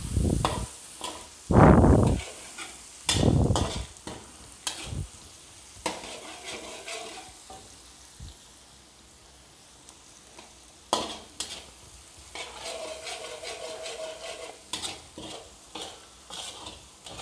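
Onions sizzling in melted butter in a pan while being stirred, with the spoon scraping and clicking against the pan. The stirring is loudest in three bursts over the first few seconds and then turns quieter, with occasional clinks.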